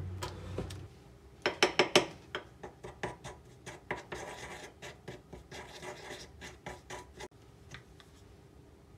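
Small wooden spoon stirring red chili flakes and water into a thick paste in a small wooden bowl: scraping and clicking against the bowl, with a quick run of sharp knocks about a second and a half in, then irregular scrapes that thin out near the end.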